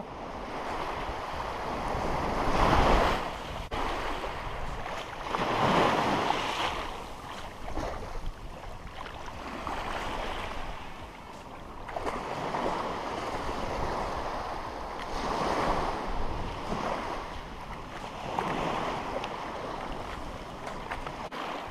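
Small surf breaking and washing up a sandy beach, the wash swelling and fading every few seconds.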